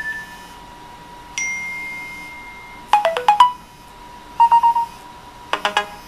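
iOS 7 iPhone alert tones previewed one after another: a single bell-like ping about a second in that fades over about a second, then a quick run of about five notes, a three-note trill, and another short run of about four notes near the end.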